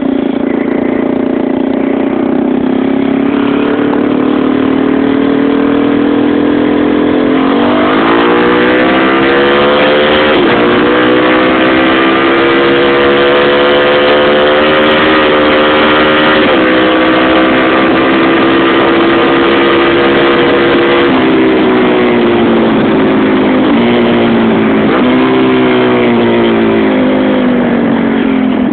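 Small single-cylinder motorcycle engine running steadily, then revved up about a quarter of the way in and held high for a while. Its pitch drops in several steps near the end.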